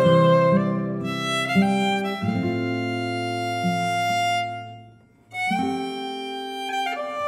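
Instrumental fiddle music: a fiddle plays slow, held notes over low sustained tones. The music fades to a brief hush about five seconds in, then resumes.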